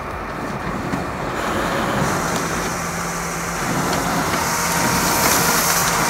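HP PageWide Color Flow E77650 printer running and feeding printed sheets out to the output tray. It gives a steady mechanical hum with paper hiss that grows near the end, and no squeak, now that its paper exit actuator has been realigned.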